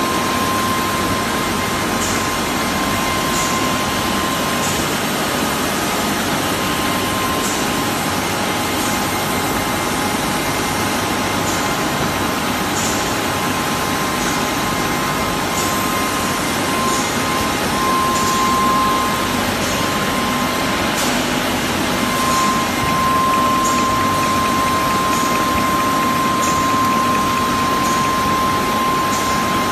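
Bottle labelling machine running at production speed: a steady mechanical noise with a constant whine, and light clicks about every second or so.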